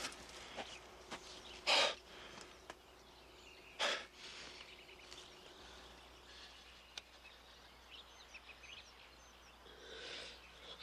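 Quiet forest ambience with faint bird chirps, broken twice by short, sharp rushes of noise about two seconds apart.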